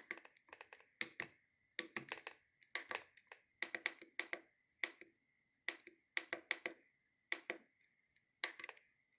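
Small tactile push buttons on a homemade Arduino Simon game being pressed in quick clusters of two to four clicks, a cluster every half second to a second, stepping through letters to enter a name on the top-score board.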